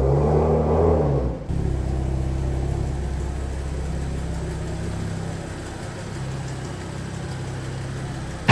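Audi S6 engine running while the car is driven slowly, louder for about the first second and a half, then steady, with a sharp knock right at the end. The owner suspects a worn timing chain rattling at the front of the engine, worst when the engine is fully hot.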